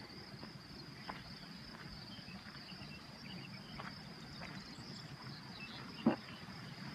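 Insects chirring steadily and high in a mountain meadow, with scattered footsteps on a stony path and one louder thump about six seconds in.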